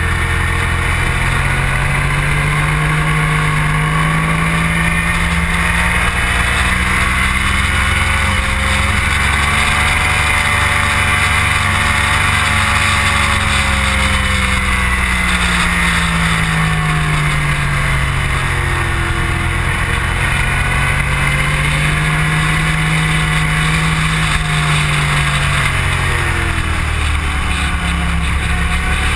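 Motorcycle engine heard from on board at speed, its pitch climbing and falling slowly as the rider accelerates out of turns and rolls off for the next, over heavy wind rush on the microphone. It climbs through about the first ten seconds, drops, then climbs and drops again about two-thirds of the way through.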